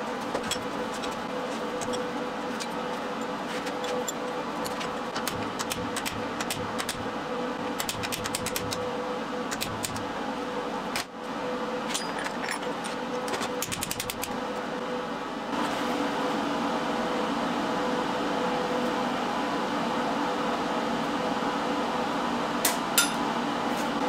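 Bench vise being cranked to press a rusted-solid pin out of a ball joint: scattered short metallic clicks and creaks over a steady mechanical hum, which gets louder about two-thirds of the way in, with two sharper clicks near the end.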